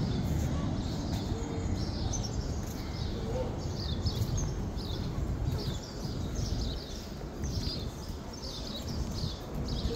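Birds chirping over and over in short, high calls, over a steady low rumble of outdoor background noise.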